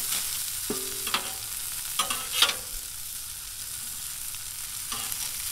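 Sausage patties sizzling on the steel plate of a Blackstone 28-inch griddle, while a metal spatula scrapes and knocks against the griddle a few times as patties are slid across it. The sharpest scrape comes about two and a half seconds in.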